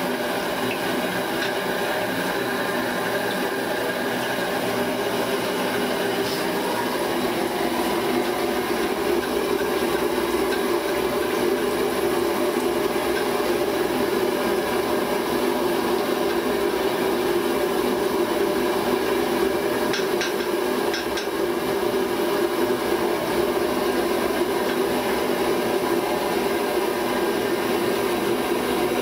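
Steady roar of a street-stall burner under a kadai of hot frying oil, as batter-coated upma balls fry for upma bajji. A few faint ticks come about twenty seconds in.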